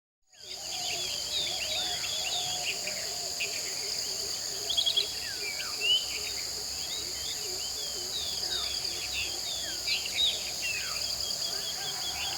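Tropical jungle dawn chorus: many birds whistling and calling over each other, above a steady high-pitched insect drone held on two constant pitches. It fades in over the first second, and a few louder calls stand out, among them a quick run of repeated notes about five seconds in.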